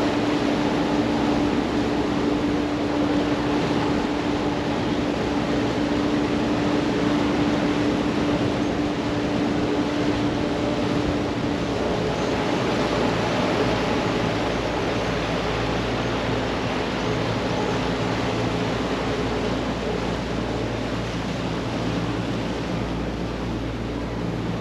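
Wooden water taxi's inboard engine running under way, with a steady rush of water and wind. A higher hum gives way to a lower drone about halfway through.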